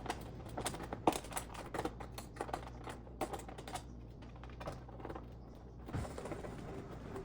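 Irregular light clicks and taps of metal parts as screws are started to fix the metal shield over the inner glass of an oven door, a few clicks a second, thinning out near the end.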